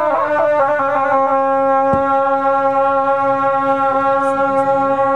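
Tibetan gyaling horns playing a long held note. The note drops in pitch at the start, then holds steady. This is the ceremonial horn music that welcomes a high lama.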